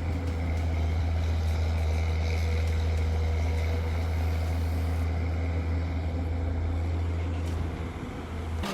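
Excavator's diesel engine running steadily with a constant low drone.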